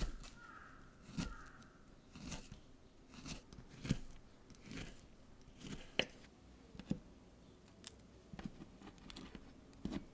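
Knife slicing through a peeled banana on a wooden cutting board. Each cut ends in a sharp tap of the blade on the board, about one a second.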